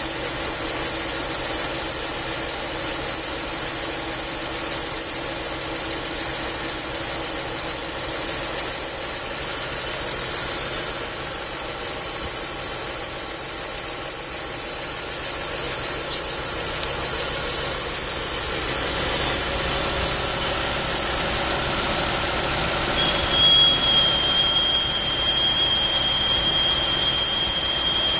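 A steady hiss that does not let up. About 23 seconds in, a thin high whistle-like tone joins it and holds steady.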